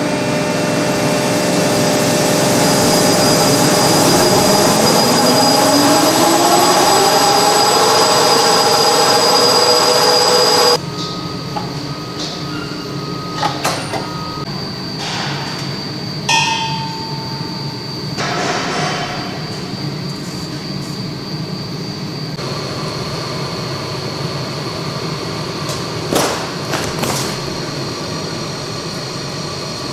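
Paper tissue and towel converting machinery running. For the first ten seconds a machine speeds up, its whine rising steadily in pitch and growing louder. It then changes abruptly to a steady running noise with a few sharp knocks.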